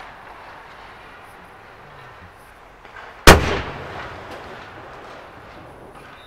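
A hockey puck shot in shooting practice: one sharp, loud crack a little over three seconds in, echoing briefly around the empty arena.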